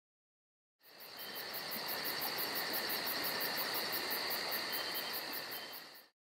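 Crickets chirping steadily in a fast, even pulse, used as a sound effect for an empty, silent moment. It fades in about a second in and fades out near the end.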